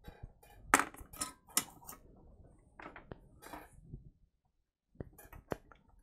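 Sharp, light clicks and clinks of small metal hand tools being handled at a microsoldering bench. There is a run of them, a pause of about a second, then a few more near the end.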